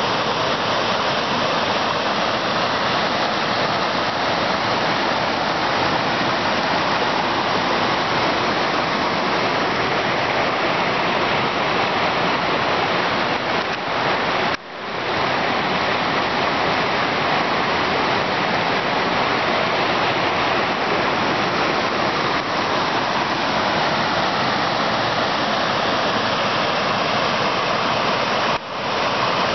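Waterfall and river rapids: a steady, dense rush of water cascading over rock. The rush dips briefly about halfway through and again near the end.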